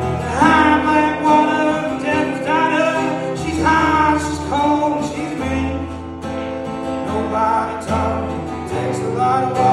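A man sings over a strummed acoustic guitar, his voice bending and sliding through the notes.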